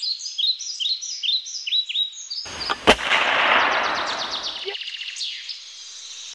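Birds chirping in a quick repeated series of short falling calls, then a single sharp gunshot-like crack about three seconds in, wrapped in a rushing noise that fades over the next two seconds, with fainter bird calls carrying on.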